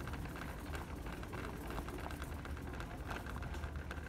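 Shopping cart rolling over a hard store floor, a steady low rumble with dense small rattling from its wheels and basket.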